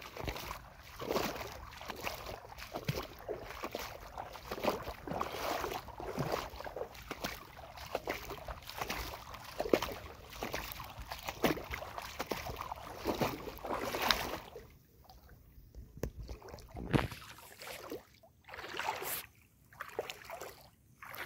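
Irregular water lapping and splashing with wind rumbling on the microphone. The sound turns quieter and more broken up in the last third.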